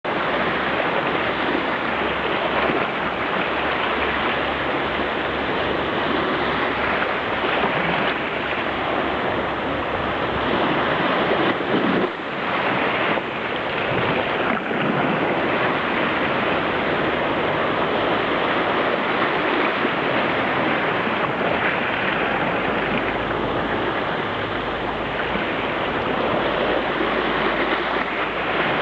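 High-tide sea waves washing over a flooded boardwalk: a steady rush of surging water that dips briefly about halfway through, with a low rumble of wind buffeting the microphone.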